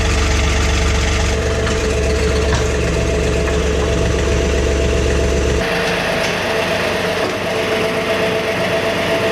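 John Deere compact tractor's diesel engine running steadily. About five and a half seconds in, the deep engine rumble drops away, leaving a steady whine.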